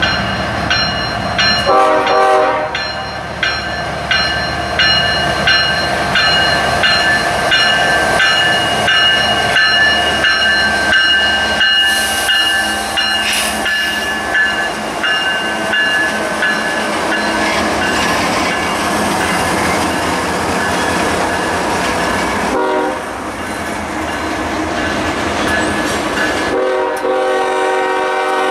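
CSX freight train passing close by, its four diesel locomotives rumbling and the wheels clacking over the rail joints, while a bell dings steadily. The train horn sounds briefly about two seconds in, again briefly late on, and then with a longer blast near the end.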